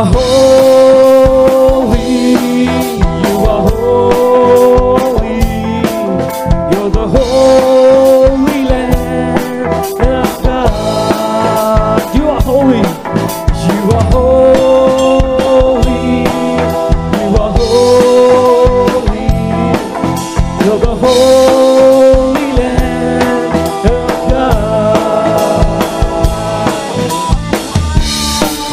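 A rock band playing an instrumental passage: a drum kit with snare hits keeping a steady beat under bass guitar, while a lead melody holds long notes that slide between pitches.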